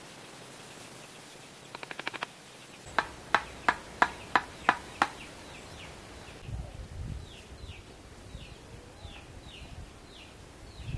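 Animal calls: short rapid clicking runs, then seven loud sharp chirps about three a second, followed by a bird repeating short falling high notes. Low rustling sits beneath the later calls.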